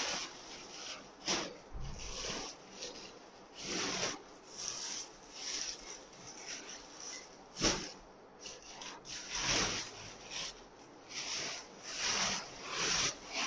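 Irregular rustling and crinkling of plastic packaging as garments are pulled out of a woven plastic sack and handled, with one sharp knock a little past halfway.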